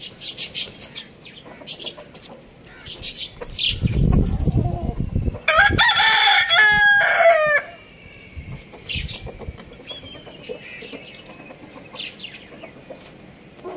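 A rooster crows once, a single drawn-out cock-a-doodle-doo of about two seconds, starting about five and a half seconds in, just after a low muffled rustle. Hens cluck sharply in the background around it.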